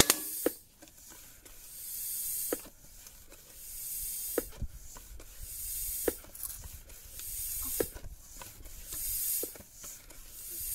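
Floor pump being worked in slow strokes, each a rising hiss of air with a click of the pump, about one every two seconds. The air is pressurising a sealed bottle of rubbing alcohol through its cork, building up until the cork pops.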